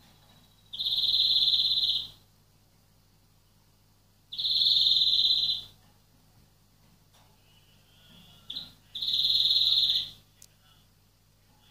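European greenfinch giving its long, buzzy wheeze call three times, about a second in, at four and a half seconds and at nine seconds. Each call is a steady nasal note lasting just over a second.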